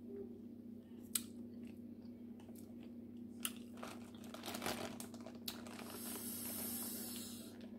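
Chewing with small clicks, then a clear plastic takeout bag of seafood crinkling and rustling as hands dig through it, from about three and a half seconds in to near the end. A faint steady hum lies underneath.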